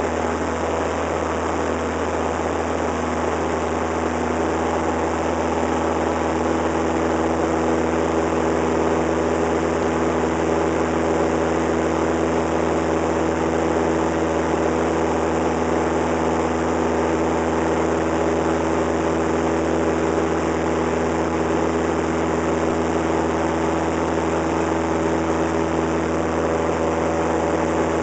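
Cessna 172's single piston engine and propeller running steadily in flight, heard from inside the cockpit.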